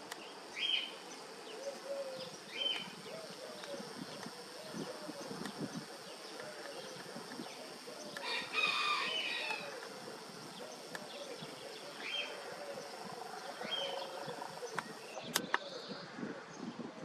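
Outdoor birdsong: a rooster crows once about eight seconds in, between scattered short chirps from small birds and a low call that repeats over and over. A steady high insect buzz runs underneath and stops near the end. The airliner overhead is too high to be heard.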